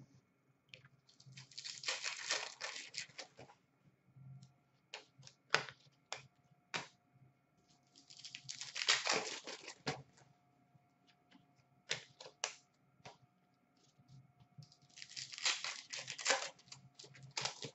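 Hockey card pack wrappers being torn open and crinkled by hand, in three rustling bursts a few seconds apart, with light clicks and taps of cards being handled in between.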